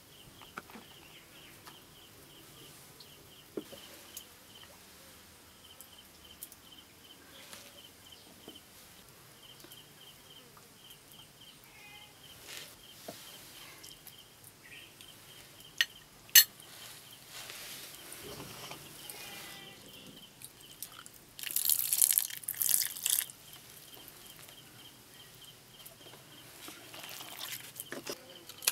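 A cricket chirping steadily in a fast pulsed trill, with scattered small clicks of handling around a steel bowl, one sharp tick a little past the middle, and a loud brief rustle of a couple of seconds soon after.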